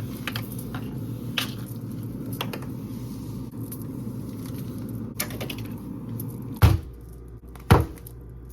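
Household items being handled in a kitchen: scattered light clicks and knocks over a steady low hum, with two louder thumps near the end.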